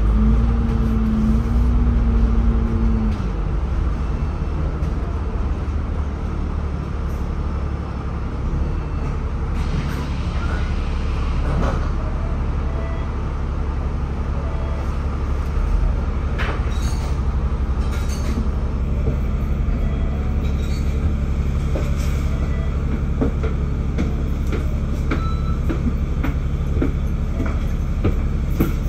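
City bus under way, heard from inside the cabin: a steady low engine and drivetrain drone with small rattles and clicks from the body. A higher tone at the start drops away about three seconds in.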